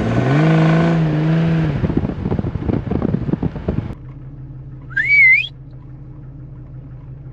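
Vehicle engine revving up as it pulls away on a dirt road, then rough gravel and road noise. After a cut, the Jeep Cherokee cab fills with a steady low engine drone, and a person gives a short rising whistle about five seconds in, calling the dog.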